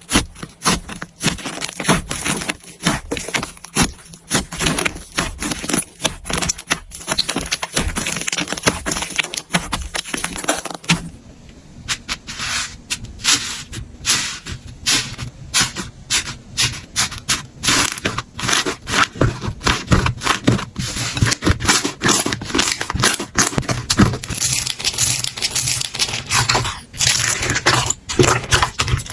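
Slime being squeezed and poked by hand, giving a dense run of small crackling pops and clicks. The sound changes abruptly about eleven seconds in, to a different batch of slime with a lower rumble beneath the clicks.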